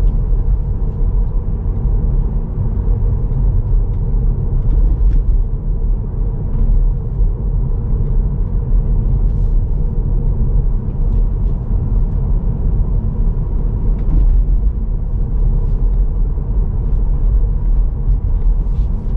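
Steady low road and tyre rumble heard inside the cabin of a moving Tesla electric car, with no engine note.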